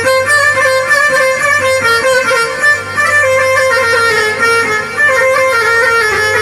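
Instrumental interlude of Arabic folk music on an oriental keyboard (org): a melody that steps up and down in short notes over a steady bass.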